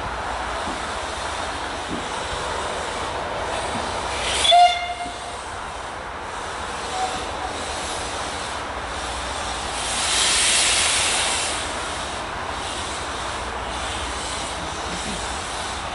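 Steam locomotive whistle giving one short blast about four and a half seconds in, over a steady background rush. Around ten seconds in, a hiss swells and fades over about two seconds.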